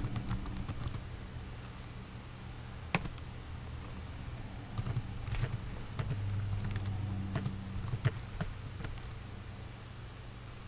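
Computer keyboard being typed on: keys clicking in irregular runs with short pauses, over a low steady hum.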